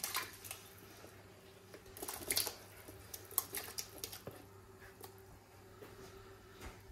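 Tomato wedges pushed by hand off a plastic chopping board into a large pot of water: soft wet squishes, light splashes and small knocks in scattered bursts, the loudest cluster about two seconds in. A faint steady hum runs underneath.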